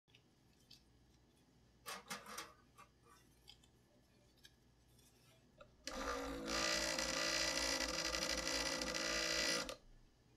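Laboratory vortex mixer running for about four seconds with a capped test tube pressed into its cup, mixing a dilution tube; it starts about six seconds in and cuts off sharply. Before it, a few light clicks of tubes being handled in a plastic rack, about two seconds in.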